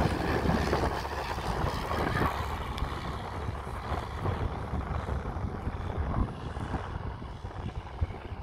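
Piper L-4 Grasshopper's propeller engine at take-off power as the plane passes low overhead, its drone fading steadily as it climbs away.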